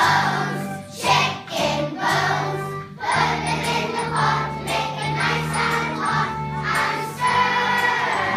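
A group of voices singing a song together in chorus over musical accompaniment.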